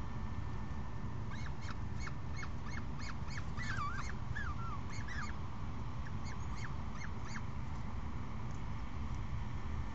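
Peregrine falcons calling at the nest during a feeding: a quick run of short, high chirps, crowded together for about four seconds, then a few sparser ones, over a steady low rumble.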